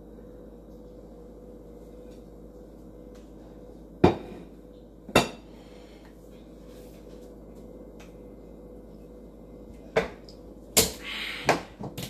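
Kitchen dishes clattering: two sharp knocks about four and five seconds in as a plate is set down, then a burst of knocks and rattling near the end as a cupboard is worked. A steady hum runs underneath.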